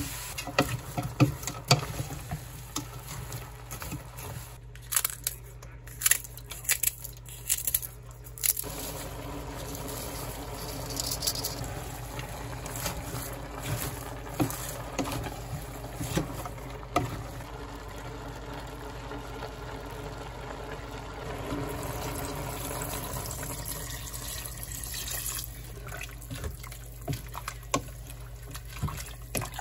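A wooden spoon knocking and scraping against a steel pot while onions and pork are stir-fried, with sharp knocks in the first several seconds. From about nine seconds in, a steady wet sizzle and bubble of cabbage and vegetables cooking in their liquid, with occasional knocks of the spoon.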